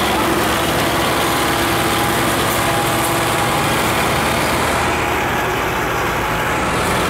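Farm tractor diesel engines running steadily under load, hauling a trolley piled with sugarcane through soft ploughed ground.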